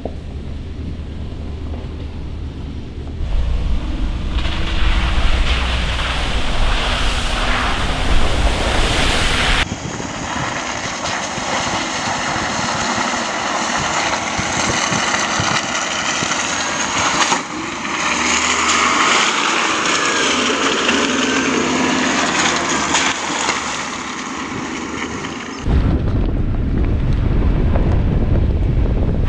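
Ford F-150 Tremor pickup driving off-road on dirt and mud tracks: engine and tyre noise with wind on the microphone. The sound changes abruptly several times, with a deep rumble about three seconds in and again near the end, and a hissier stretch between.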